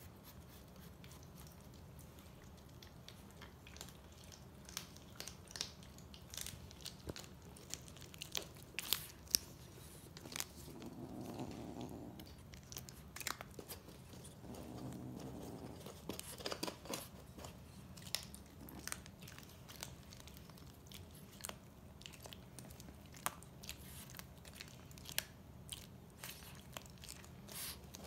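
Tabby kittens licking Churu paste from a squeezed treat tube: a run of quick, wet clicks and smacks from tongues and mouths.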